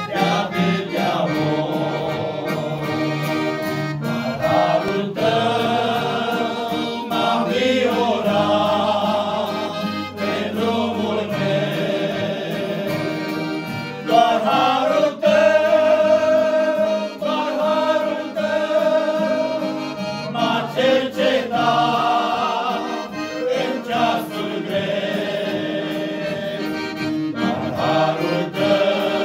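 A group of men singing together in long held phrases, accompanied by a piano accordion.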